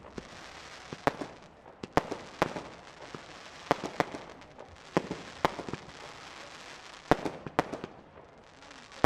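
Professional aerial fireworks shells bursting: a string of sharp bangs roughly every half second to second, some in quick pairs, over a steady hiss.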